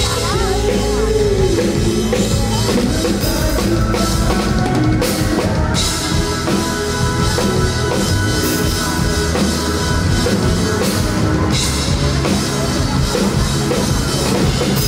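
Live pop-rock band playing, the drum kit prominent with steady kick and snare and crash cymbals ringing out twice.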